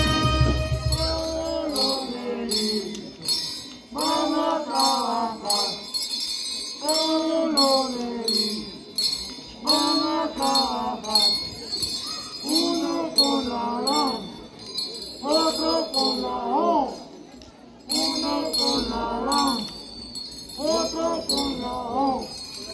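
Festival folk music: jingle bells shaken in a steady beat, about two to three shakes a second, under a high melody in short rising-and-falling phrases, with no bass.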